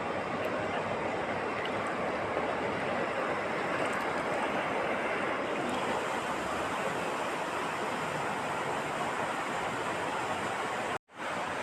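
Steady rushing noise, even and unbroken, that cuts out for a moment near the end.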